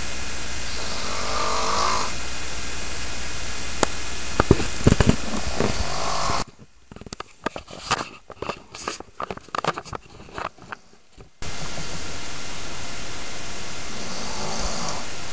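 A sleeping person snoring, a few slow snores several seconds apart over a steady hiss. About halfway through, the hiss cuts off for about five seconds, leaving only faint scattered clicks.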